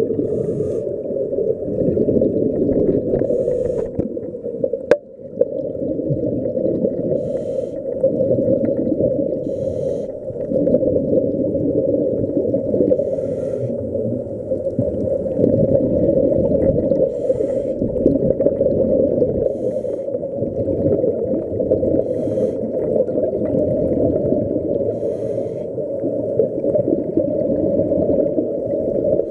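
Muffled underwater rumble heard through a camera's waterproof housing, with a scuba regulator's breathing, a hissing, bubbling burst every two to three seconds. A single sharp click about five seconds in.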